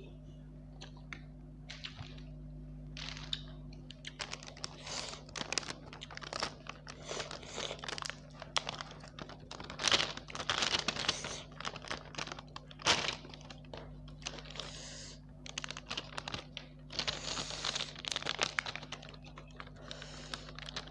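Plastic snack packet of Big Sheet crinkling and crackling as it is opened and handled. The crinkling comes in dense runs from about four seconds in, with the sharpest crackles around ten and thirteen seconds in.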